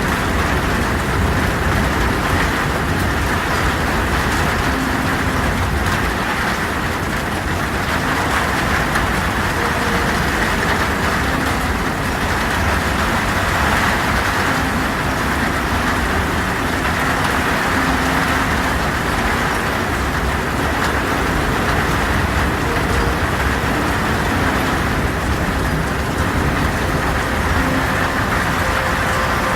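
Heavy rain falling steadily on a tin roof, a dense even patter with no pauses.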